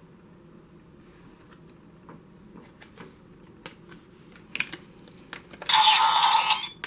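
Light scattered clicks of a Decadriver-style transformation belt being readied with a rider card. Near the end comes a loud, bright electronic burst about a second long.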